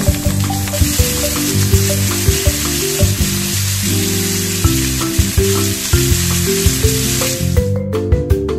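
Skin-on chicken pieces frying in oil in a frying pan, sizzling steadily, with background music over it. The sizzling cuts off sharply near the end.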